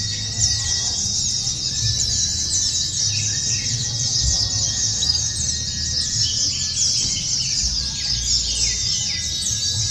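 Many white-eyes singing at once in a dense, unbroken chorus of rapid high chirps and trills, with a few longer whistled notes. A low steady rumble runs underneath.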